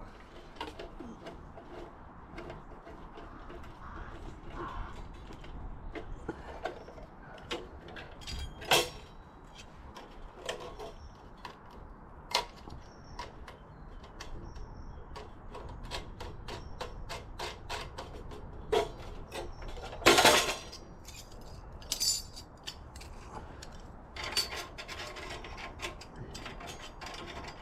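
Thin titanium panels of a folding rocket stove being slotted and fitted together: a scatter of light metal clicks and scrapes, with a louder clatter about twenty seconds in.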